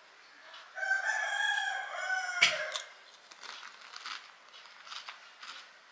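A rooster crowing once, a pitched call of about two seconds starting just under a second in. A sharp crack comes near the end of the crow, followed by faint small clicks.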